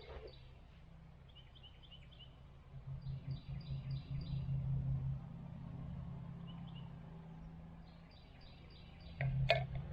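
Small birds chirping in quick series of short notes over the low, steady hum of an engine running. The hum swells about three seconds in and again near the end, and there is one sharp click just before the end.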